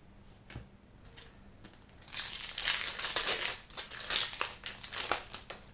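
Foil booster-pack wrapper of a Magic: The Gathering pack crinkling and being crumpled in the hand, a dense crackle lasting about three and a half seconds that starts about two seconds in.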